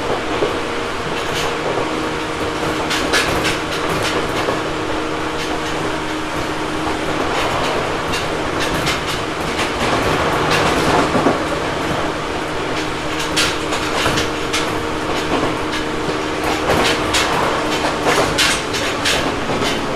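Ohmi Railway 900 series electric train (a rebuilt Seibu 101 series), heard aboard motor car Moha 901 while running between stations. A steady hum runs under a constant rumble, with wheels clicking sharply over rail joints, more often in the second half.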